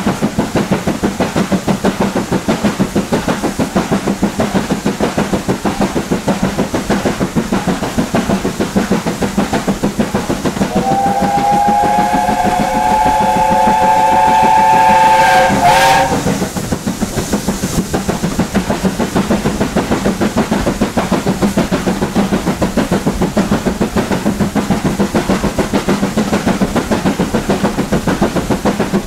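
BR Standard Class 7 'Britannia' Pacific 70013's two-cylinder steam engine working hard, its exhaust beating quickly and evenly. About ten seconds in, a steam whistle sounds for about five seconds: a held chord of several tones that lifts slightly in pitch just before it cuts off sharply.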